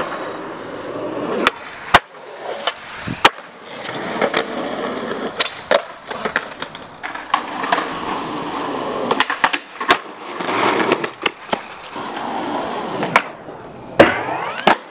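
Skateboard wheels rolling on concrete, broken by a series of sharp clacks from the board popping and landing in street tricks. Near the end comes the loudest clack, as the board hits a metal handrail and slides down it with a brief ringing, then another clack at the landing.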